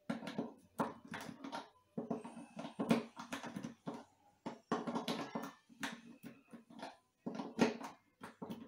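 Hand screwdriver driving the neck screw through the heel into a bolt-on acoustic guitar neck: spells of rapid clicking and knocking, each about half a second to a second long, with short pauses between.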